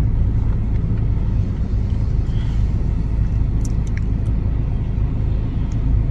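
Steady low rumble of a double-stacked container freight train passing over the road crossing, heard from inside a stopped car.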